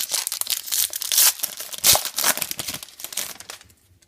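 Foil wrapper of a trading card pack being torn open and crinkled by hand, loudest in the first two seconds and settling after about three and a half.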